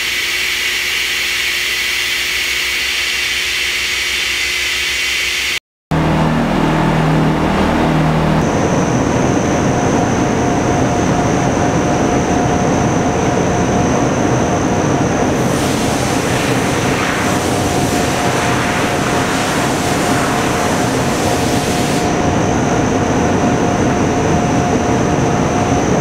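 Robotic sand-milling cell running: a loud, steady hiss of machine noise. It cuts out for a moment about six seconds in, and a thin steady whine joins about ten seconds in.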